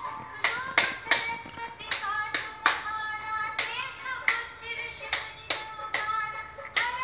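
Hands clapping in a steady beat, about three claps a second, in time with a devotional aarti being sung.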